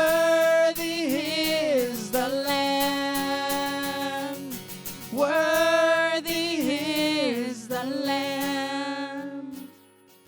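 Worship song: a singer holds long, wavering notes in two drawn-out sung phrases over acoustic guitar. The music thins out and fades near the end.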